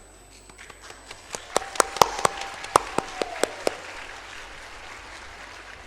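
Audience applauding: scattered hand claps pick up about a second and a half in, with a handful of loud, sharp claps close by, then thin out after about four seconds.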